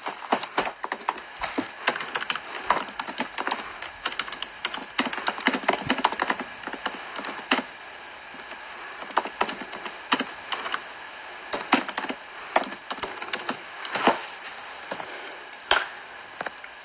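Rapid, irregular clicking and tapping, like typing, with a few sharper, louder clicks about halfway through and near the end.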